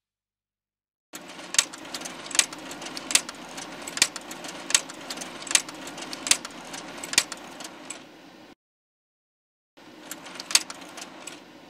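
Sound-effect clicks, one sharp click about every 0.8 s, over a low steady rumble, timed to round badges popping onto the screen one by one. The sound cuts off abruptly, then returns briefly with a few more clicks.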